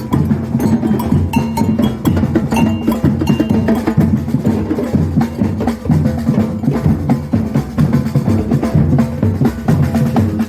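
Batucada drumming in a fast, dense rhythm: deep bass drums under snare drums and sharp, high, wood-block-like clicks.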